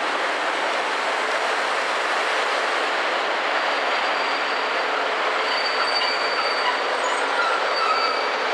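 Passenger train rolling past along the platform, a steady noise of wheels on rails, with faint thin squeals of the wheels in the second half.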